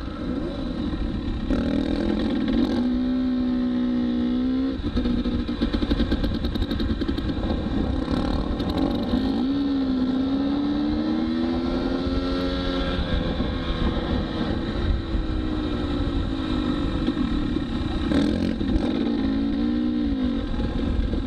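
Dirt bike engine running under way, its pitch climbing and dropping several times with the throttle, over steady wind rush.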